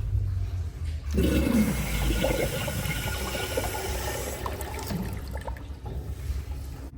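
A commercial toilet flushing: a sudden rush of water about a second in that keeps swirling and draining for several seconds, then tapers off near the end.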